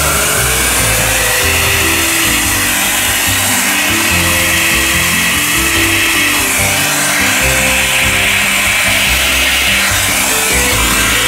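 Vacuum cleaner running steadily as its narrow nozzle sucks dust off a model railway layout, a constant even hiss, with background music playing over it.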